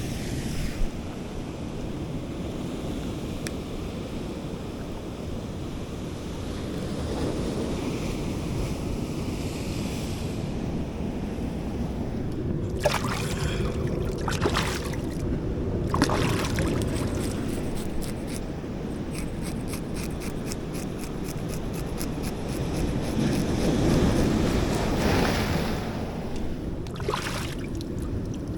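Sea surf washing against shoreline rocks, with wind on the microphone. The wash swells and eases, with a few sharper splashes.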